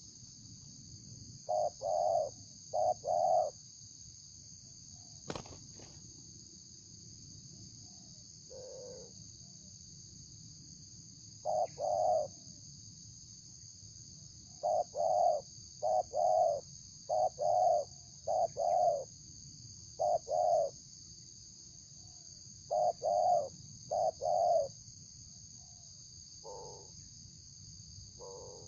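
Spotted dove cooing in short repeated phrases of a few coos each, with pauses of several seconds between phrases, over a steady high drone of crickets.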